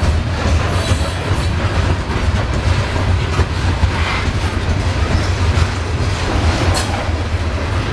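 Norfolk Southern coal train's hopper cars rolling past close by, a steady deep rumble of steel wheels on rail.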